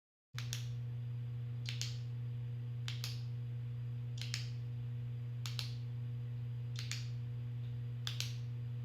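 A steady low hum runs throughout, with a sharp double click, two quick taps close together, recurring evenly about every second and a quarter, eight times.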